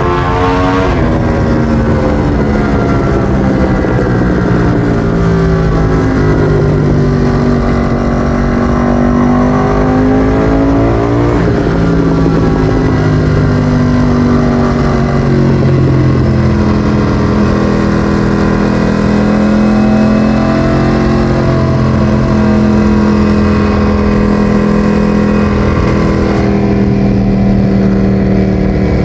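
Ducati Streetfighter V4S's 1103 cc Desmosedici Stradale V4 engine through an Akrapovic exhaust, running under way. Its pitch rises and falls with the throttle, drops sharply at a shift about a second in and again around eleven seconds, and later holds fairly steady.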